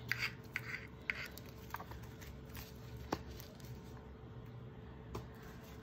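Faint handling noises: a few light clicks and taps of small plastic paint bottles and gloved hands, scattered irregularly over a steady low hum.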